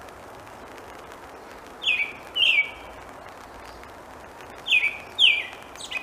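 American robin singing: two short phrases about three seconds apart, each a pair of clear notes that drop in pitch, with a short extra note near the end. Steady rain hiss beneath.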